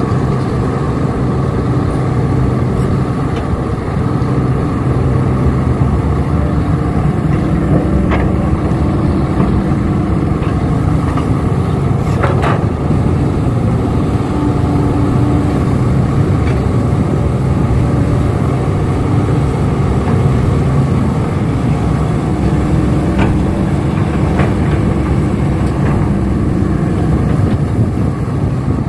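Heavy construction-machine diesel engine running steadily, with a few short knocks from the work.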